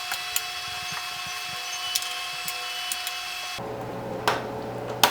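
Top cover of a car radio/display unit being fitted by hand: light clicks and scraping, then two sharp snaps near the end as it seats.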